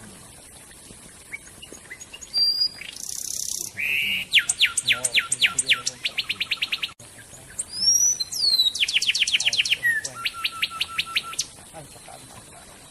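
Songbird singing two bouts of rapid, evenly repeated falling notes, a fast trill. A short hiss and a few sweeping whistles come just before each bout.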